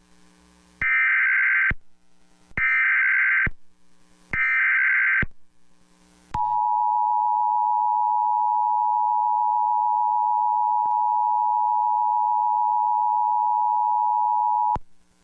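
Emergency Alert System broadcast tones: three short, buzzing bursts of SAME digital header data, then, about six seconds in, the steady two-tone EAS attention signal (853 and 960 Hz) held for about eight seconds and cutting off suddenly. Together they announce an emergency alert message about to be read, here a National Weather Service flash flood warning.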